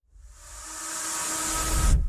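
A hissing whoosh that swells up over about two seconds and cuts off sharply, like an intro riser sound effect.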